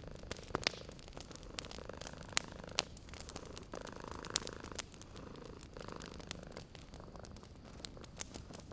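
A cat purring steadily, close by, over a wood fire crackling with sharp irregular pops, a few louder snaps among them.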